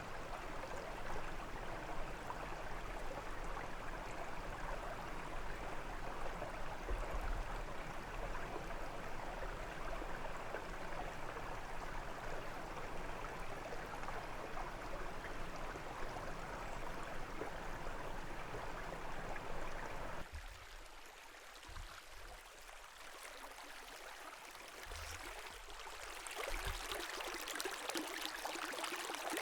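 Brook water running, a steady rushing. About twenty seconds in it changes abruptly to a quieter, thinner trickle with no low rumble, which grows louder and brighter a few seconds before the end.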